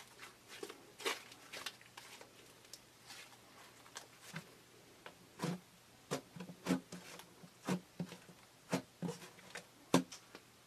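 Fingers pressing and poking thick pink slime, giving irregular small squelching pops and clicks as trapped air is squeezed out. The pops are sparse at first and come about one or two a second in the second half.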